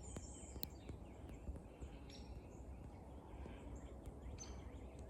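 Faint wild songbirds chirping and calling in short, scattered notes, over a steady low rumble of wind or handling noise, with a few sharp clicks.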